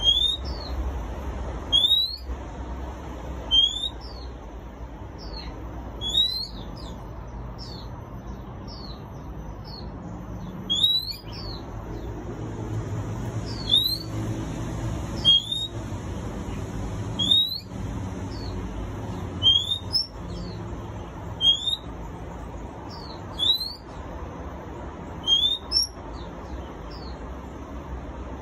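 Caged oriental magpie-robin calling: a short, sharply upslurred whistle repeated about every one and a half to two seconds.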